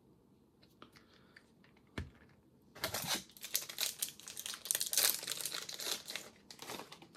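Packaging crinkling and rustling as it is handled: a single knock about two seconds in, then a few seconds of dense crinkling that stops just before the end.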